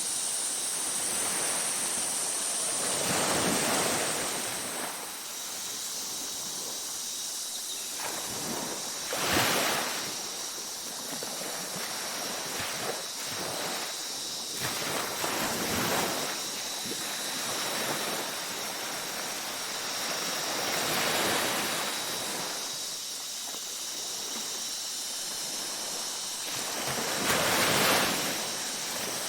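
Ocean waves breaking and washing up a beach, a louder surge about every six seconds over a steady wash of surf.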